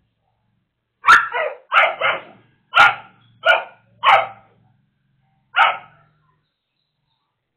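A dog barking: a quick run of about seven sharp barks, then a single bark after a short pause.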